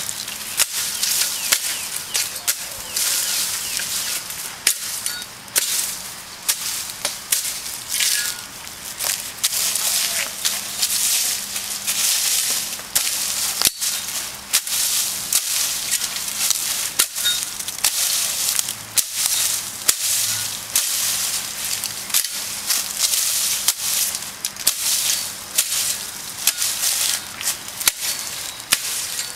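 Machete blade slashing through brush stems, an irregular run of sharp chopping whacks, about one or two a second, each with a swish and rustle of leaves and snapping twigs.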